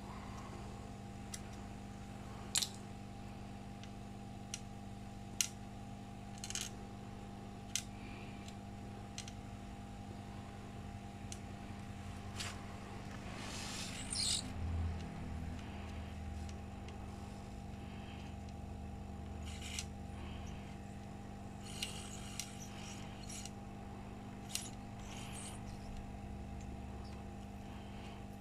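Small sharp clicks and taps of soldering tools and a flux syringe handled over a laptop motherboard during solder rework, a dozen or so scattered through, with a brief rustle about halfway. Under them runs a faint steady hum.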